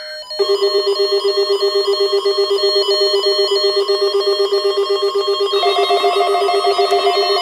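NOAA Weather Radio warning alarm test sounding, with weather radio receivers' electronic alarms beeping rapidly and loudly as the signal sets them off. A second alarm at a different pitch joins about five and a half seconds in.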